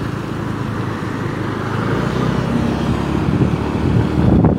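Steady engine and road noise heard from inside a moving vehicle in traffic.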